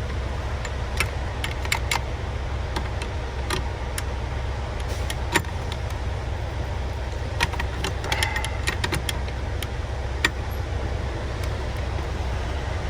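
Scattered sharp plastic clicks and taps of a turn signal switch being handled and pushed against its mount on a truck steering column, with a cluster around eight seconds in. The switch won't seat because it is being fitted upside down. A steady low rumble runs underneath.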